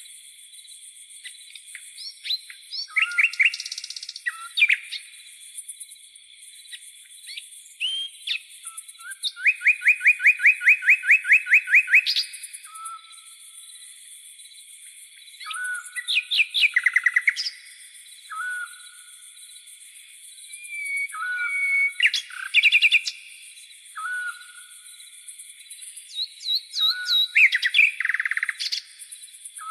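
Several tropical forest birds calling, with chirps and whistled phrases coming every few seconds. About ten seconds in there is a fast run of repeated notes lasting a few seconds. A steady high insect hiss, like crickets, runs underneath.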